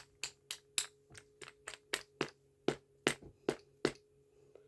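A quick run of sharp taps from a small metal flashlight being handled, about three to four a second, uneven in loudness, with the louder ones in the second half.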